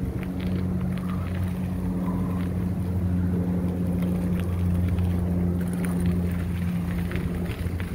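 Wind rumbling on the microphone of a moving camera, over a steady low hum, with a few faint ticks.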